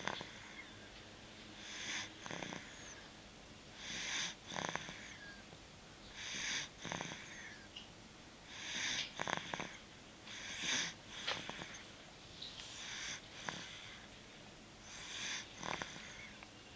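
Snoring in sleep: noisy, slightly wheezy breaths about every two seconds, each a short double rasp, with quiet between.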